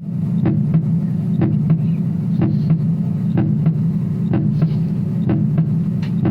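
A steady low hum with a pair of short clicks, about a quarter second apart, repeating roughly once a second in an even beat.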